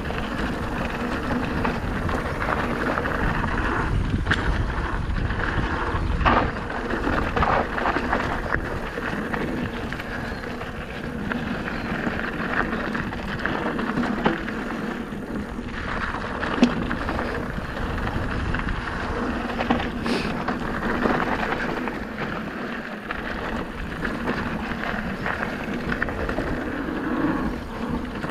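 Merida eOne-Sixty e-mountain bike descending a loose gravel and dirt trail: a steady rush of tyres rolling over grit and stones, with wind on the microphone and a few sharp knocks from the bike over bumps.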